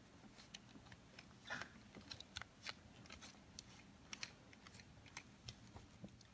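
Faint scratchy rubbing and small irregular clicks of a cloth scrubbing a plastic toy train held in the hands.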